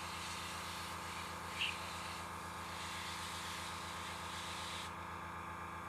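Steady low hum of a small electric motor, with a faint high hiss that cuts off about five seconds in and one brief faint sound about one and a half seconds in.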